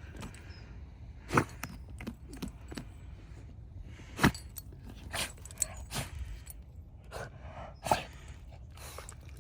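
Dog digging in soil: irregular scrapes and crunches with a few sharper knocks.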